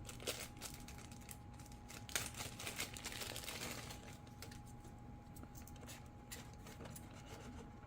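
Faint clicks and rustling of hands handling a small RC plane's battery and plastic connector, busiest in the first half, over a faint steady hum.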